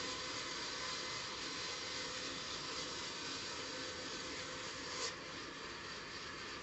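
Sawmill band saw cutting lengthwise through a log, running steadily with a faint high steady tone. About five seconds in there is a sharp knock, after which it runs a little quieter.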